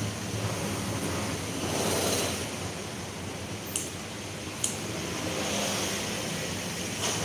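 Kitchen scissors snipping leafy greens, with two sharp snips a little under a second apart near the middle and another near the end, over a steady rushing background noise.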